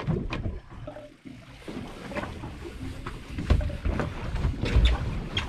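Wind gusting on the microphone aboard a small boat at sea, with a few short knocks.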